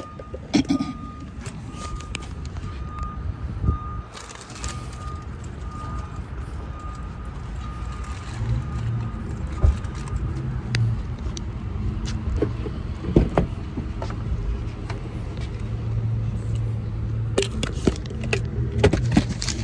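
A car's warning chime beeping steadily, about twice a second, then stopping about ten seconds in, with keys jangling and scattered knocks of handling. A car engine hum runs underneath and grows louder from about eight seconds in.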